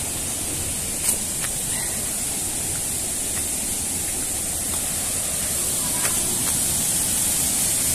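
Waterfall rushing steadily: a constant hiss of falling water, with a faint click about a second in.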